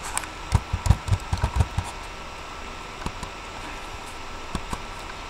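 Computer keyboard and mouse clicking: a quick run of about a dozen taps and dull thumps in the first two seconds, then a few single clicks, over a steady electrical hum.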